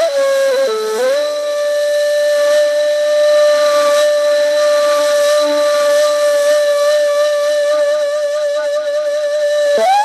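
Music: a flute-like wind instrument dips to a short lower note about a second in, then holds one long steady note, and glides up to a higher, wavering note near the end.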